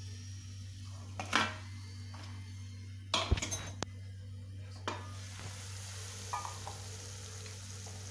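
A metal utensil knocking against a frying pan a few times, then hot oil sizzling in the pan as food cooks, over a steady low hum.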